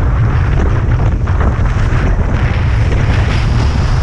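Strong wind buffeting the microphone over the steady rush of water along a sailboat's hull as it sails heeled in rough water.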